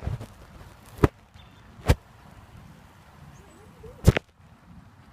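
Three sharp, loud cracks: one about a second in, one just under a second later, and one about two seconds after that.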